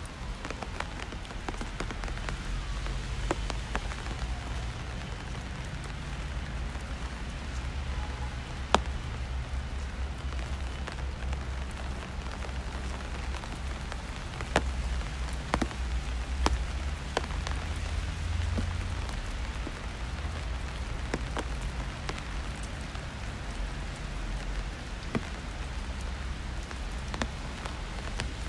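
Steady rain on a city street: an even hiss of rainfall with sharp ticks of single drops at irregular intervals, over a low rumble.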